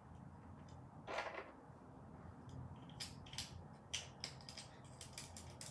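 Faint, sharp clicks from a Planet Eclipse Emek paintball marker's trigger frame being handled, several a second from about three seconds in, after a short rustle about a second in.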